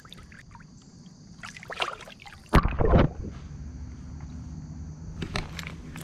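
Water splashing as a striped bass is released by hand in the shallows, with a few small splashes and then one loud splash about two and a half seconds in. A steady low rumble follows.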